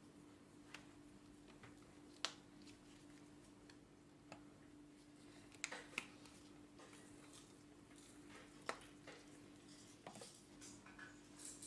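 Faint, scattered clicks and taps of a spoon and spice jars being handled while spices are measured into a glass jar, over a low steady hum of room tone.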